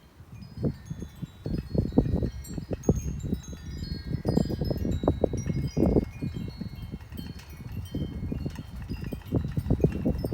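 Gusts of wind buffeting the microphone with heavy, uneven rumble, while many short, high ringing chime tones sound at different pitches throughout.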